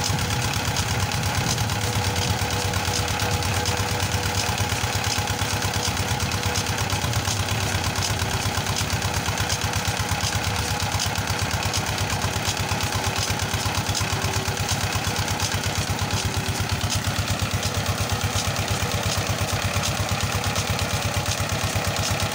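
Small single-cylinder diesel engine driving a tubewell pump, running steadily with an even, rapid beat, while water gushes from the outlet pipe into the brick tank.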